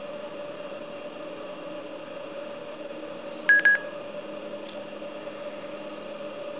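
Two short electronic beeps in quick succession about halfway through, from an X-Mini KAI portable Bluetooth speaker, over a steady faint hum and hiss.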